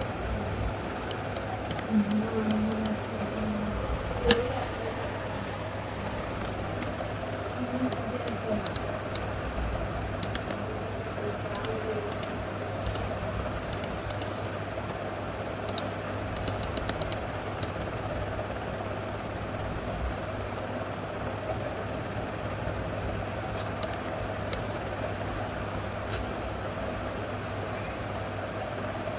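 Computer mouse clicking, single clicks and quick clusters of clicks, over a steady low hum.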